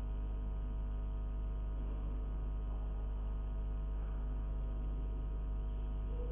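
Steady electrical mains hum with many stacked overtones and an unchanging level.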